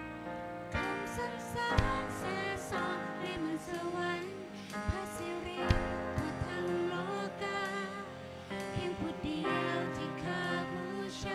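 Live worship band playing a praise song: a woman singing lead over keyboard, acoustic guitar and drums, with a few sharp drum hits.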